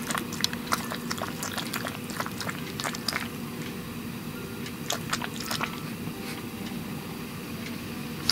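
A tabby cat's mouth smacking and clicking as it licks and swallows oral rehydration solution from a syringe: irregular short wet clicks, thick in the first few seconds and sparser after.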